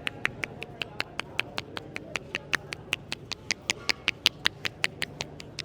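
Barber's hands rapidly striking a head during a head massage: a steady run of sharp slapping claps, about five a second, with some louder than others.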